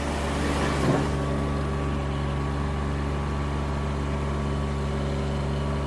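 Kubota D902 three-cylinder diesel engine of a Derette V1000 mini skid steer running steadily, with a brief whine falling in pitch about a second in.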